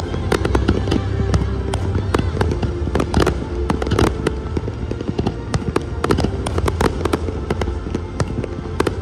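Aerial firework shells bursting in a display, many sharp bangs and cracks in quick, irregular succession over a steady low rumble.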